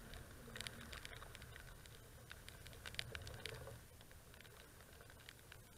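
Raindrops tapping irregularly on the camera housing, faint scattered ticks over a low steady rumble.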